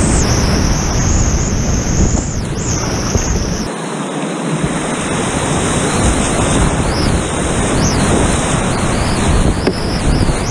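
Loud, steady rush of whitewater rapids around a kayak, heard from a camera riding close to the water, with wind buffeting the microphone. The deep rumble briefly drops out about four seconds in.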